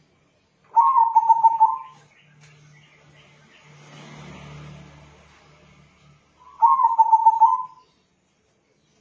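Local crossbred zebra dove (perkutut) cooing: two phrases, each a quick run of short rolling coo notes lasting about a second, the second phrase coming about six seconds after the first.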